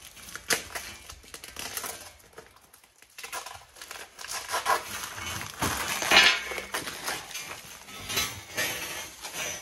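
Plastic wrapping crinkling on and off as it is pulled off a new steel snowplow cutting edge and bunched up by hand.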